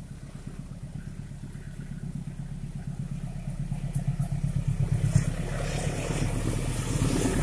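A CC 204 diesel-electric locomotive approaching, its engine drone growing steadily louder as it nears.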